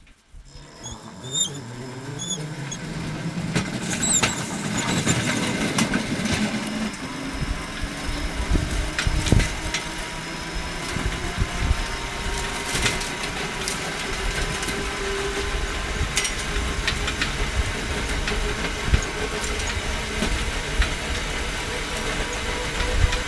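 A home-built electric rail vehicle pulls away from a standstill and rolls along the track. The sound builds over the first few seconds into a steady run of wheels on the rails with scattered clicks, and a faint whine slowly rises in pitch as the vehicle speeds up.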